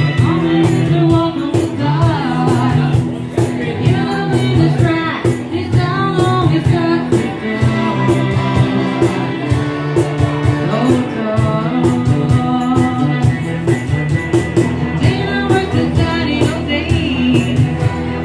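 Music with a woman singing over a band with a steady drum beat.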